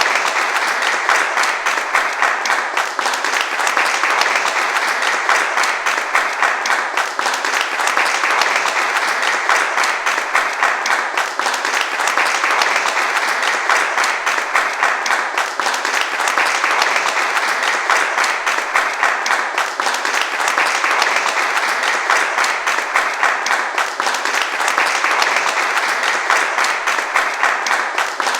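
A crowd applauding: many hands clapping at once, merging into a dense, steady wash of claps that holds at an even level without swelling or dying away.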